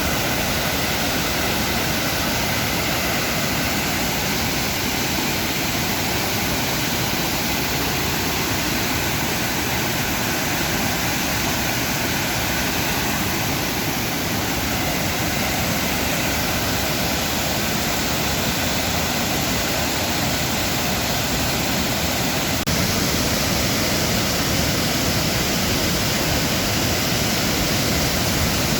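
Steady rush of fast-flowing water, a constant even wash of sound that steps up slightly about 23 seconds in.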